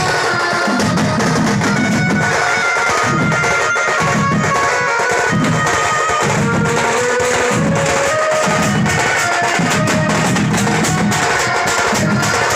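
Band party playing loud instrumental music: a reedy wind melody over heavy, steady drumming.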